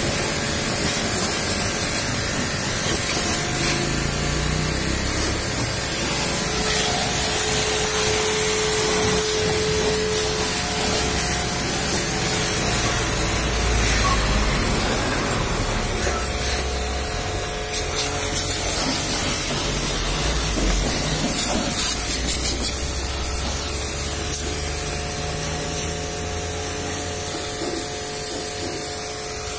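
High-pressure washer jet spraying water onto a car's bodywork: a steady hiss with a faint steady hum underneath.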